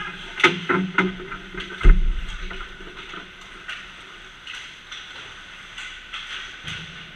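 Ice hockey play close to the net: several sharp clacks of sticks and puck on the ice in the first second or so, then a heavy thump about two seconds in, followed by fainter scattered clicks of play further off.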